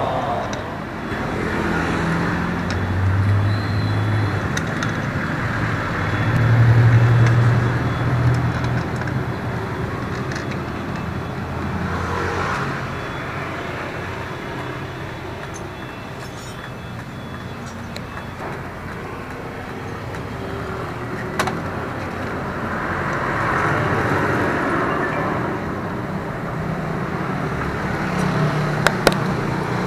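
Passing road traffic: vehicle engines swelling and fading in a steady wash of road noise, with a few sharp clicks of hand tools, two of them near the end.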